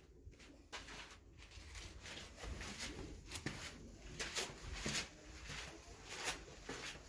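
Footsteps going down stone stairs, a soft tap or scuff about every half second to second.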